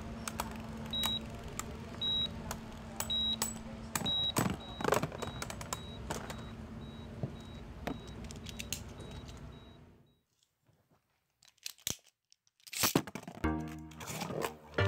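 Beyblade spinning tops whirring in a plastic stadium, with sharp clicks as they strike each other and the stadium wall, and a repeated high beep in the background. The sound fades out about ten seconds in, and music starts near the end.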